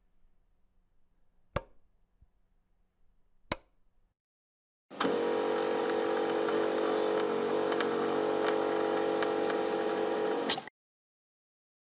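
Two sharp clicks, then a small electric motor appliance is switched on, runs steadily with a hum and a rushing hiss for about five and a half seconds, and is switched off with a click.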